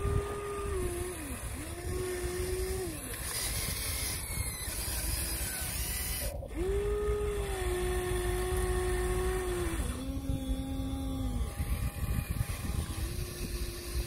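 Huina RC excavator's electric motors whining in stretches of one to a few seconds, the pitch sliding up as each boom, arm or bucket movement starts and down as it stops, over a steady low rumble.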